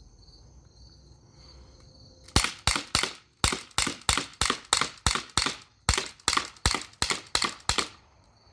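Colt M45 CO2 blowback BB pistol fired in rapid succession: about twenty sharp shots at roughly four a second, starting about two and a half seconds in and stopping near the end.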